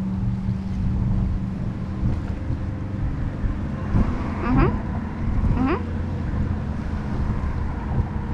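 Wind buffeting the microphone over a steady low motor drone. Two short rising cries come about four and a half and five and a half seconds in.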